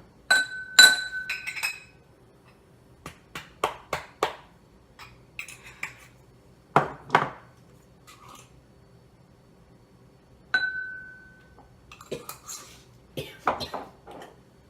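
Kitchen containers clinking and knocking against one another while spices are added to a bowl: a string of irregular clinks and taps, a few of them ringing out briefly with a clear glassy tone.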